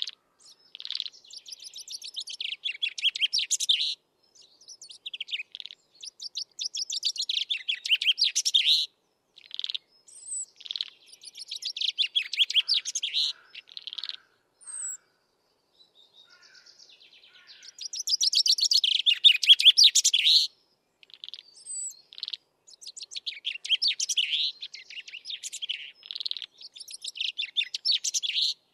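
Common chaffinch singing: a string of song phrases, each a quick run of notes two to three seconds long, with short pauses between; the loudest phrase comes about two-thirds of the way through.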